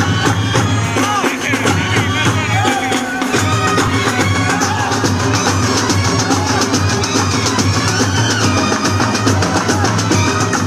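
A drum troupe on large slung bass drums and side drums playing a loud, dense, steady beat, with a wavering melody line carried over the drumming.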